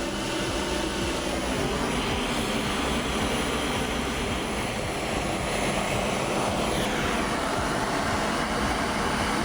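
Gas torch flame burning steadily, heating a small steel form tool to hardening temperature before the quench. Its pitch shifts a little about seven seconds in.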